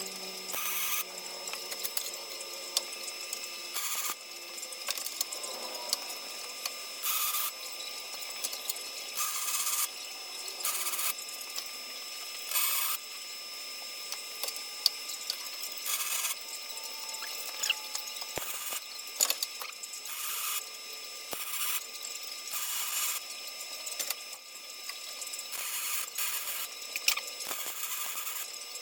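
MIG welder laying short stitch and tack welds: a crackling hiss in many stop-start bursts, each from a fraction of a second to about a second long, as a replacement crossmember is welded into a truck frame.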